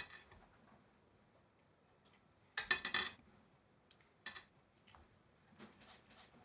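Small metal rings clinking as they are set down on a ceramic washbasin: a click at the start, a quick cluster of clinks a little before halfway (the loudest), another a second later, and a few faint taps near the end.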